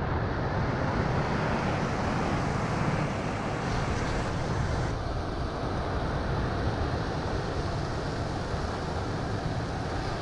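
Computer playback from Finale notation software of a piece's final held sound: a steady, pitchless rushing noise with no clear notes.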